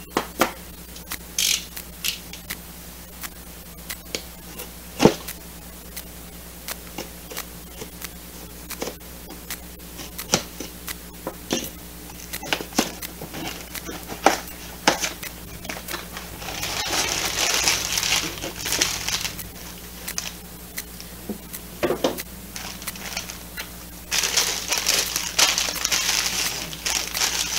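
A cardboard box being opened with a utility knife and handled, with scattered sharp clicks and scrapes. Then plastic bags of LEGO pieces crinkle as they are taken out and spread on the table, in a spell about two-thirds of the way through and again near the end.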